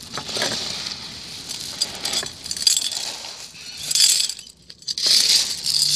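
Loose small gravel scraped and scooped by hand, the stones clinking and rattling against each other in several bursts.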